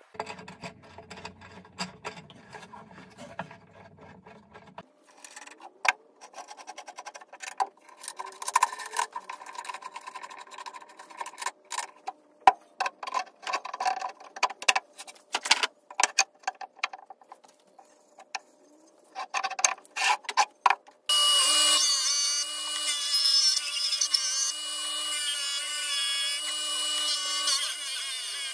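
Scattered knocks and clicks of metal and wood parts being handled on a workbench. About three quarters of the way through, a benchtop disc sander comes in loud, running with a steady high whine as a wooden board is pressed against its disc.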